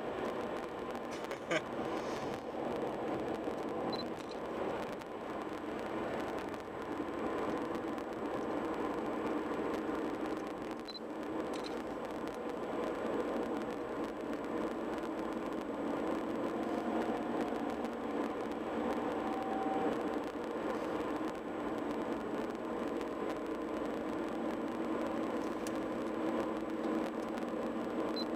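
Steady road and engine noise inside a moving car's cabin at highway speed, with a single sharp click about a second and a half in.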